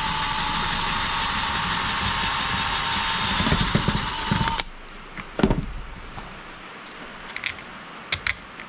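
Power drill running at a steady speed while boring a hole, with some heavier rumbling near the end as the bit works through; it cuts off suddenly about four and a half seconds in. A few light clicks and knocks follow.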